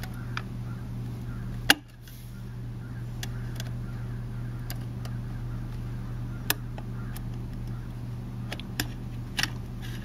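Scattered sharp clicks and taps as the metal Wi-Fi antenna plate of a 2011 Mac Mini is worked loose by hand, the loudest click about two seconds in, over a steady low hum.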